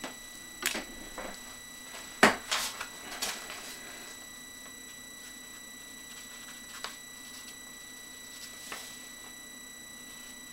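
A handful of light clicks and knocks at a desk, bunched in the first few seconds with the loudest about two seconds in, then two faint ones later, over the steady high-pitched whine of a PC fan.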